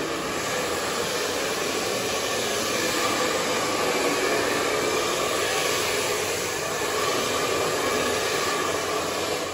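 Handheld hair dryer running steadily, a constant rush of air, as long hair is blow-dried.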